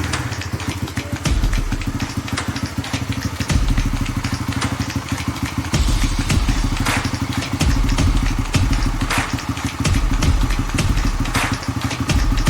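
A small motorcycle engine running, its level rising briefly about every two seconds as if the throttle is blipped.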